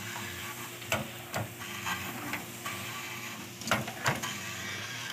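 Water hissing from a sprayer hose onto fresh pebble-washout concrete, rinsing off the cement to bare the stones, over a steady low machine hum, with a few scattered clicks.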